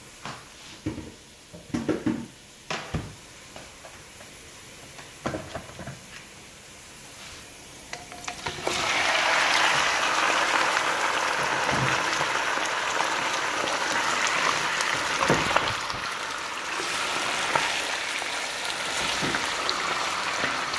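Raw chicken pieces dropped into hot oil with browned onions, sizzling loudly and steadily from about eight seconds in. Scattered knocks before and during the sizzle as the pieces are handled and stirred with a wooden spoon.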